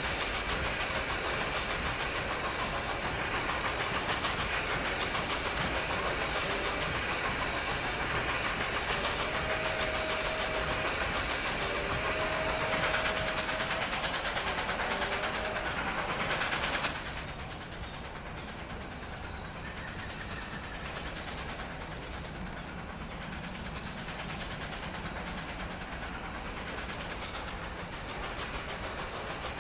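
Strasburg Rail Road No. 90, a 2-10-0 steam locomotive, and its train running, with a loud, steady rushing noise that cuts off abruptly about 17 seconds in. Quieter steady running noise is left after the cut-off.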